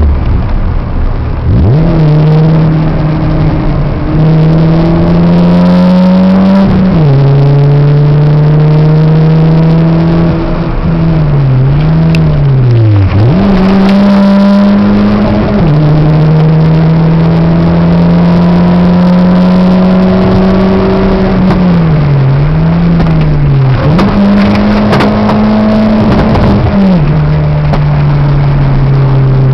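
Peugeot 206 engine driven hard, heard from inside the cabin. The revs climb steadily, hold, and drop suddenly several times, with two quick up-and-down swings in pitch where the car slows for a corner.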